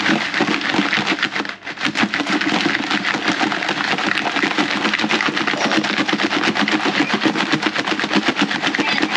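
Pieces of raw black crab (a'ama) in their shells rattling and clattering as they are mixed with seasoning in a container: a rapid, even rattle of many hits a second that starts abruptly.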